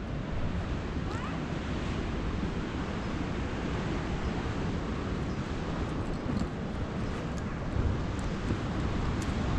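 Steady outdoor noise of wind and surf: wind gusting on the microphone over the wash of ocean waves.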